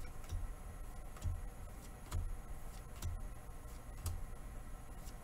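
Trading cards being flipped one by one in the hand, a soft click with a low thud about once a second as each card is moved to the back of the pack.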